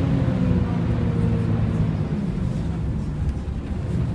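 Volvo B10BLE bus's diesel engine running steadily, with a fainter higher tone that falls slightly in pitch over the first second or two.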